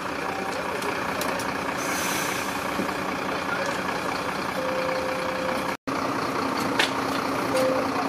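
Fire engines' diesel engines running steadily, with a beep lasting about a second around two-thirds of the way through and a shorter beep near the end. The sound drops out for an instant between the two beeps.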